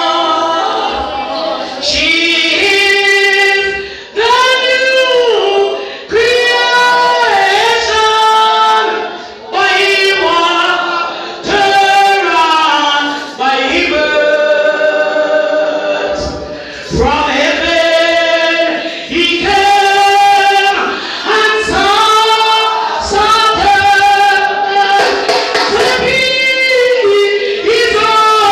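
A group of voices, women's prominent, singing a church song together in phrases of a second or two with short breaths between them.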